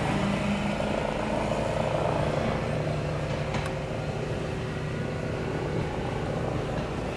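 Keifuku Randen Mobo 21-type tramcar pulling away at low speed: a steady electric motor hum with a few low held tones, slowly fading as it goes. A single sharp click about three and a half seconds in.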